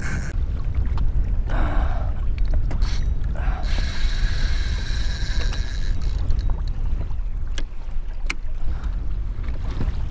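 Fishing reel's drag whining as a hooked fish pulls line off, once at the very start and again from about three and a half to five and a half seconds in, with scattered clicks. Wind rumbles on the microphone throughout.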